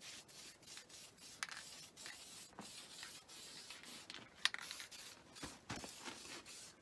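Faint clicks and scraping of hand work on a tractor's three-point hitch, with one sharper click about four and a half seconds in.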